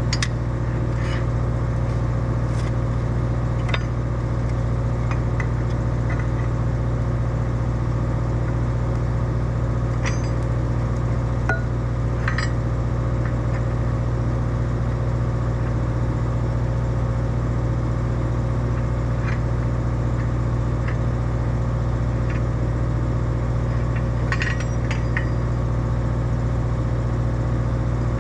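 Excavator's diesel engine running steadily at an even speed, with a few faint metallic clicks now and then.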